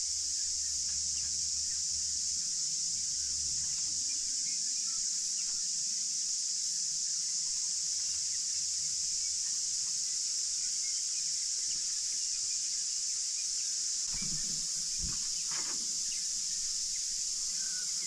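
Steady high-pitched insect chorus, with faint scattered bird chirps and a few soft low thumps near the end.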